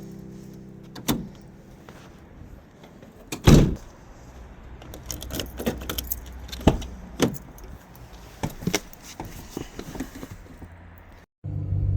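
Keys jangling with scattered clicks and knocks, the loudest a single thump about three and a half seconds in. Near the end, after a short break, a steady low vehicle rumble cuts in.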